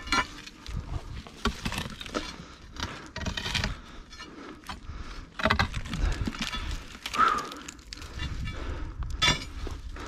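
Irregular knocks, scrapes and rustling as a long pole is worked against rock and pushed through dry scrub into a crevice.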